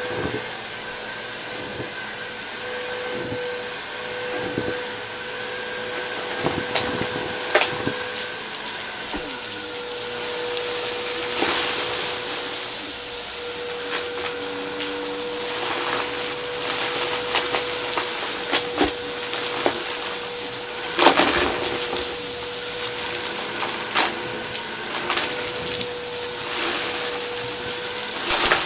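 Vacuum cleaner running steadily with a constant whine, while debris is sucked up in frequent sharp clicks and rattles, the loudest a little past seven seconds in and about twenty-one seconds in.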